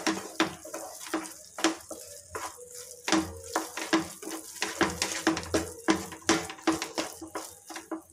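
Wooden spatula stirring and scraping a thick, wet beetroot-and-bread halwa mixture around a nonstick frying pan, with a rapid, irregular series of scrapes and knocks against the pan.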